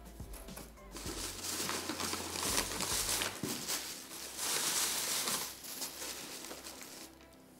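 Crumpled packing paper rustling and crinkling as hands dig through it inside a cardboard box, starting about a second in, loudest around the middle and dying away near the end.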